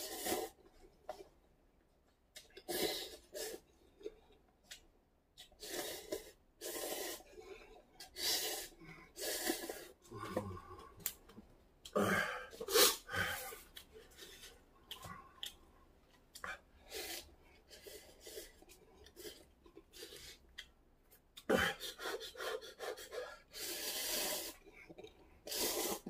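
Instant cup ramen noodles being slurped from the cup with chopsticks in a run of quick, hissing slurps, with breaths in between as the noodles are eaten at speed.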